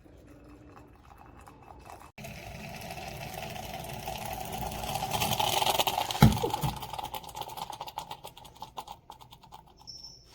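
Stainless steel moka pot on the stove hissing and sputtering as it boils, building to a peak. Just after the peak there is a single knock, and the sputtering then dies away in small crackles.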